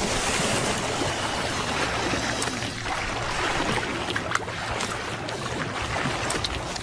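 Water splashing and churning as a Nile crocodile thrashes and tears at a wildebeest calf's carcass in shallow river water, with a few sharper splashes.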